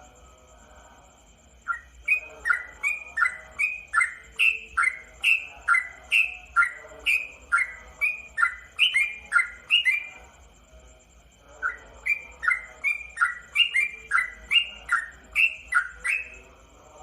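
Caged sooty-headed bulbul (trucukan) singing a long run of repeated whistled notes, about two a second. The run breaks off for about a second and a half, then starts again.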